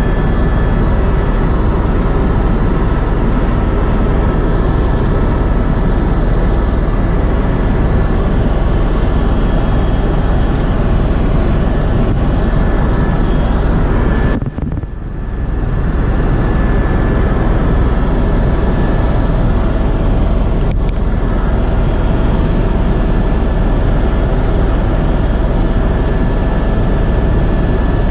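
Helicopter in flight: a steady loud drone of engine and rotor with a high turbine whine running through it. The level briefly drops about halfway through, then comes back.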